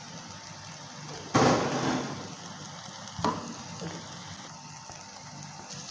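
Sliced onions and chilli flakes frying in a steel pan, with a steady sizzle. A sudden louder rush comes about a second and a half in, and a short sharp knock a little after three seconds, as a metal spoon stirs the mix.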